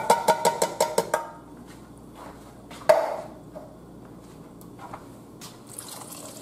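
A metal spoon tapping and scraping against the inside of a tin can, knocking corn out into a pan: a rapid run of ringing ticks, about eight a second, that stops about a second in, then a single clank about three seconds in.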